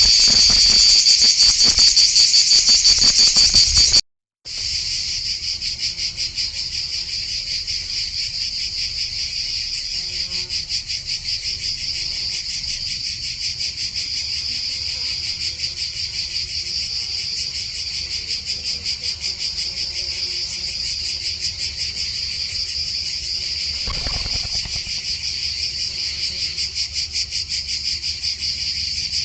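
A steady, high-pitched insect chorus, a fast, even pulsing trill. It cuts out briefly about four seconds in, then resumes a little quieter.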